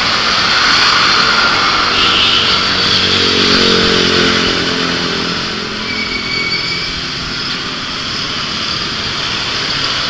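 Roadside traffic with motorbikes: one small motorbike engine passes about two to five seconds in, over a steady hiss of traffic noise.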